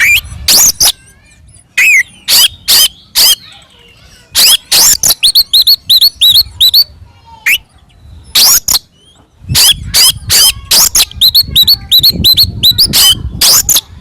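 Oriental magpie-robin (kacer) singing loudly in the aggressive fighting style: rapid runs of harsh, scratchy notes mixed with sharp whistled phrases, in bouts broken by short pauses.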